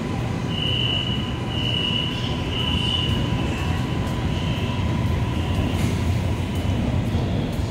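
Six-car CRRC Puzhen metro train pulling out of an underground station: a steady low rumble and a faint steady tone, with a high squeal that comes and goes about once a second during the first few seconds.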